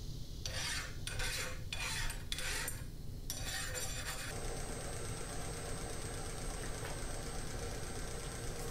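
A hand file scraped in about five quick strokes across the 1070 steel sword blade just after the quench, testing whether the hardened steel resists the file. From about four seconds in, a belt grinder runs steadily with a thin high whine.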